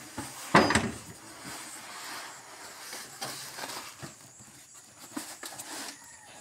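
Stack of polystyrene ceiling sheets scraping and rustling as it is dragged out of the back of a van. There is a loud scrape about half a second in, then scattered light knocks and rubbing.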